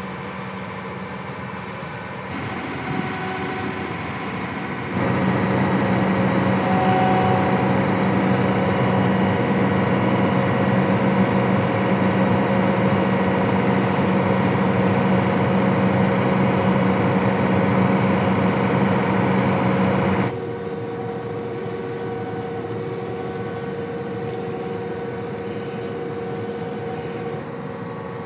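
John Deere T660 combine harvester's engine running steadily. It gets suddenly louder about five seconds in and drops back just as suddenly about twenty seconds in.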